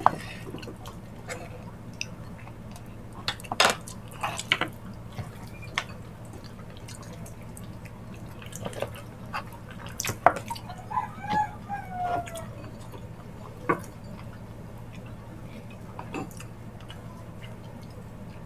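Wet, sticky eating sounds from biting and chewing soft, gelatinous stewed ox feet by hand: scattered lip smacks and slurpy clicks. A short pitched murmur comes in about eleven seconds in.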